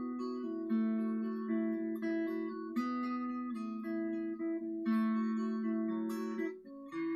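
Acoustic guitar strumming a chord sequence in an instrumental break of a song, with a new chord struck about every two seconds.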